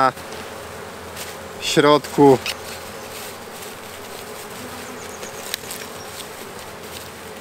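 Honeybees buzzing steadily around a hive.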